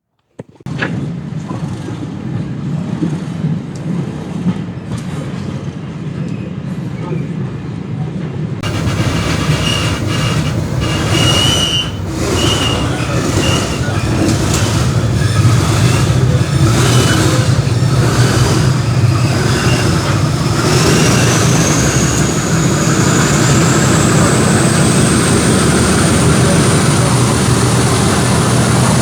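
English Electric diesel engine of a class 37 locomotive, heard from a coach of the train, running with a steady low hum. About nine seconds in it grows louder and brighter. In the last ten seconds a high whistle rises steadily in pitch as the engine powers up.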